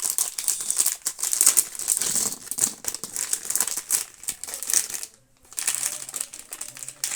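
Plastic packaging crinkling and small chess pieces clicking and rattling as they are handled, with a brief pause about five seconds in.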